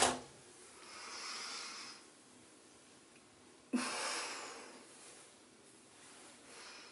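A woman's breathing: a soft long breath out about a second in, then near four seconds a sigh that starts suddenly with a brief voiced note and trails away.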